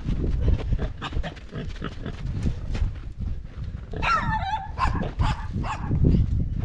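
An animal gives a brief wavering squeal or whine about four seconds in, over low rumble and scattered rustling and clicking noises.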